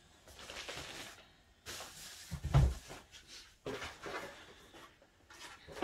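Rustling and handling of packaging while a computer monitor is unpacked from its foam wrap and cardboard box, with one loud, dull thump about two and a half seconds in.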